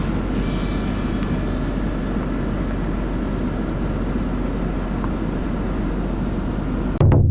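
Motor vehicle engine running steadily, with most of the noise low and deep. Just before the end it cuts off abruptly into a single deep booming hit that rings on and fades.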